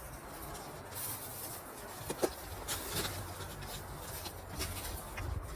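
Faint, scattered rustles and light taps of camping gear being handled, over a low, steady background rumble.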